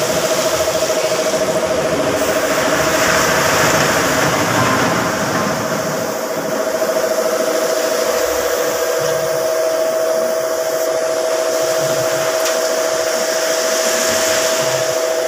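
Air spray gun hissing as it sprays automotive paint, swelling and easing off as the gun is triggered, over the steady hum of an air compressor running throughout.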